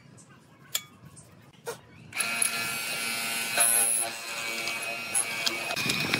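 Hollow-chisel mortising machine's electric motor switching on about two seconds in and running with a steady whine. Before it, a couple of light clicks as the workpiece is set in the clamp.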